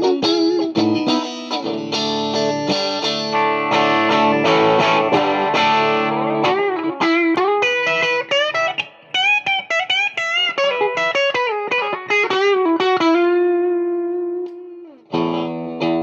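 Fender Player Plus Stratocaster HSS electric guitar being played: strummed chords for about the first six seconds, then single-note lead lines with bends and vibrato. A held note rings out and fades, then a quick slide down leads into chords again near the end.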